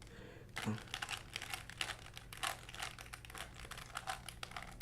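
3x3 Rubik's cube being turned by hand during a solve: quick, irregular plastic clicks of its layers snapping round, several a second.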